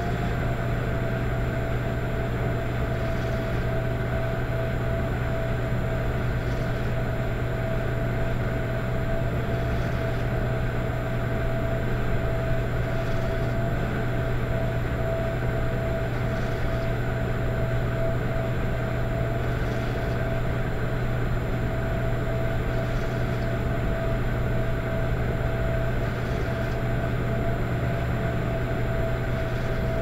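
Electric fireplace running: a steady low hum with a constant whining tone, and a soft swish that comes round about every three seconds, a rhythmic soft snoring noise.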